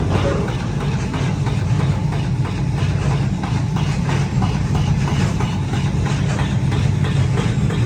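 A machine running steadily with a low hum and a rapid, irregular clatter over it.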